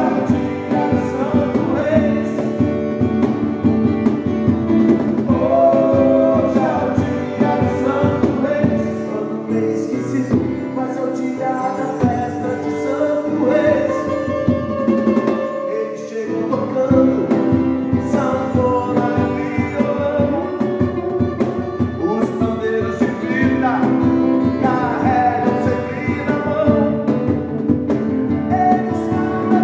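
Pop rock song playing, with guitar and drums.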